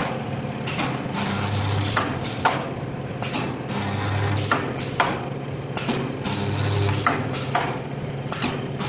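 Automatic steel grating welding machine working through its cycle: a low electrical hum swells about every two and a half seconds, with sharp metallic clicks and knocks in between.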